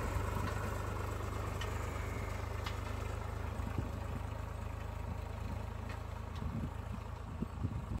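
Farm tractor's diesel engine running steadily as it pulls a tine cultivator through dry soil, with a few low knocks near the end.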